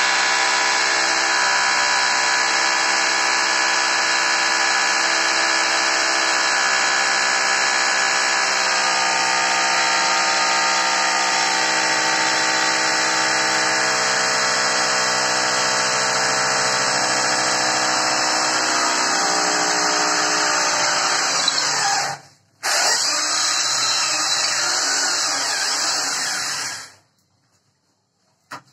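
Corded electric hammer drill running steadily as it drills into a ceramic-tiled bathroom wall, boring fixing holes for the WC and flush tank. It stops briefly about three-quarters of the way through, runs again, then stops for a second or two near the end.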